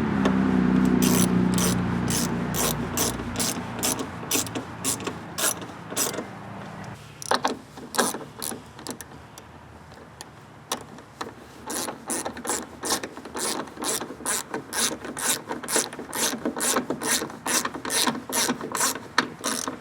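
Hand ratchet wrench clicking in quick strokes as bolts are run in, in two spells of about two to three clicks a second with a pause in the middle. A low droning hum fades out over the first few seconds.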